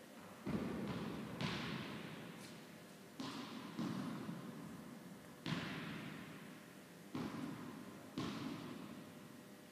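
Tennis ball being struck by a racket and bouncing on a hard court, seven sharp impacts, mostly in pairs less than a second apart. Each impact is followed by a long echo from the large indoor hall.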